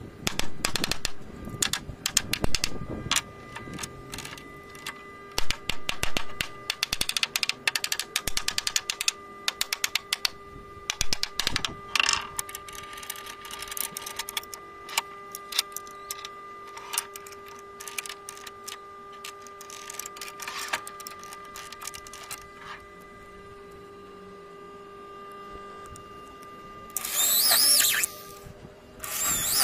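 A long run of rapid, irregular clicks and ticks, then near the end an electric drill boring into the hardwood door frame in two short bursts, its whine rising and falling.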